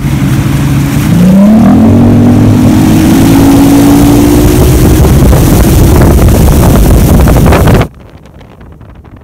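Johnson 150 Fast Strike two-stroke V6 outboard accelerating a bass boat, its pitch rising about a second in, then running loud at speed with heavy wind noise on the microphone. Near the end the loud sound cuts off suddenly, leaving quieter wind.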